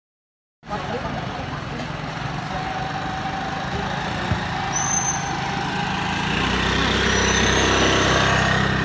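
Street-market ambience: steady street noise with a motor scooter's engine running close by. The engine hum grows louder about six seconds in. The sound cuts in suddenly after about half a second of silence.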